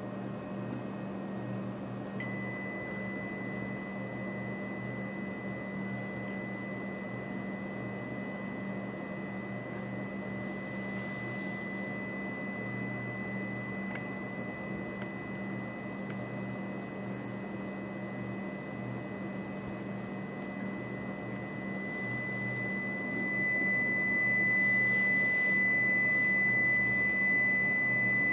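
Electromagnetic radiation detector sounding a steady high-pitched alarm tone, signalling a raised reading beside a charging mobile phone. The tone comes on about two seconds in and grows louder near the end, over a constant low hum.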